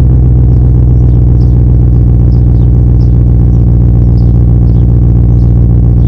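BMW E34 540i's 4.0-litre V8 idling steadily through a custom exhaust shortly after a cold start.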